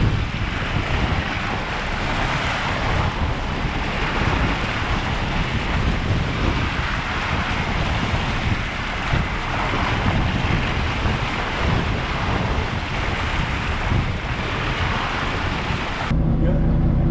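Wind buffeting the microphone over the rushing, splashing wake of a boat under way. About a second before the end it cuts abruptly to a steady low engine hum.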